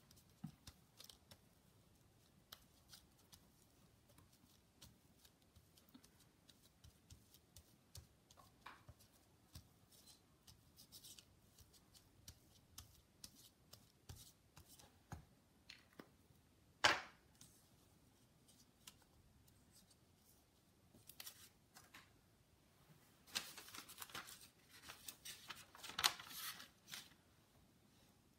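Faint handling of craft materials: scattered small clicks and taps, one sharper click past the middle, and a few seconds of rustling and scraping near the end.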